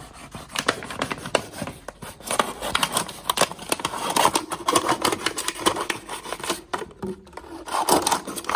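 A plastic bottle being cut apart by hand: an irregular run of scraping, scratchy strokes and small clicks as the blade works through the plastic.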